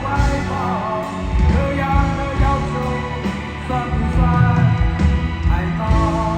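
Live rock band music: a steady kick-drum beat under sustained melody lines, with a voice or lead instrument carrying the tune.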